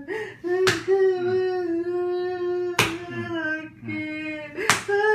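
A man's voice holding a long, drawn-out cry on a steady pitch, wavering slightly and dipping at each break, interrupted three times by sharp slaps about two seconds apart.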